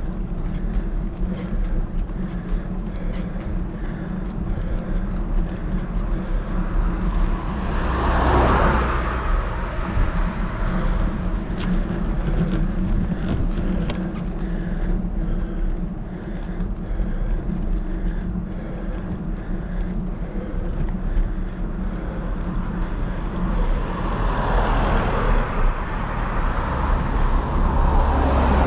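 Cars passing on the road, one about eight seconds in and another swelling up near the end, over a steady low hum of road noise.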